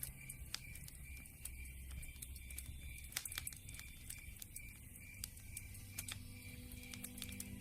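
Campfire crackling, with irregular sharp pops and snaps from the burning wood.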